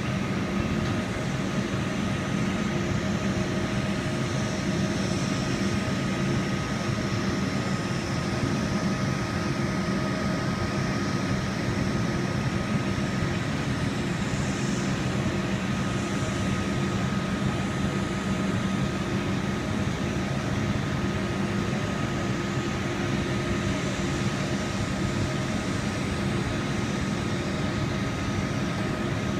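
Fire boat's engines and pumps running with a steady drone, holding several constant hum tones over a wide, even rush of noise.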